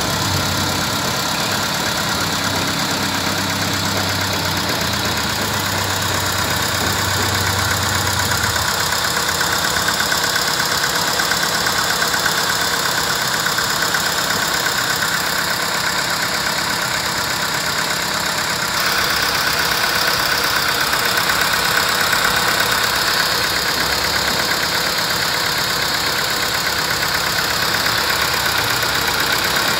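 VW Vento's petrol engine idling unevenly with a misfire on cylinder 1, caused by a failing ignition coil on that cylinder. It grows a little louder about nineteen seconds in.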